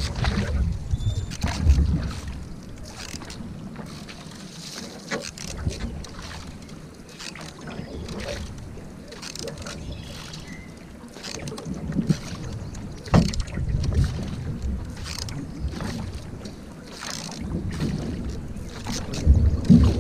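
Canoe paddle strokes dipping and splashing in calm water, irregular small splashes and drips throughout. Wind rumbles on the microphone, heavier near the start and near the end.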